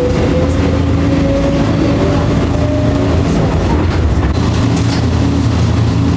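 2270-series electric train running, with a steady low hum and a thin whine that rises slowly in pitch over the first three seconds as it gathers speed.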